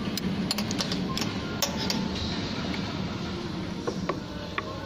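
Scattered light metallic clicks and taps of a hex key and hands working the steel hold-down plate and its screws on a CNC band saw, over a steady low hum.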